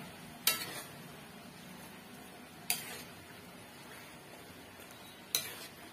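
Spatula knocking against a metal wok while stirring a thick stew: three sharp clacks spaced a couple of seconds apart, each with a short ring.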